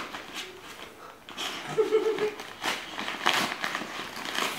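Irish Soft-Coated Wheaten Terrier tearing at gift wrapping with its teeth: irregular crinkling and ripping rustles of the wrapping.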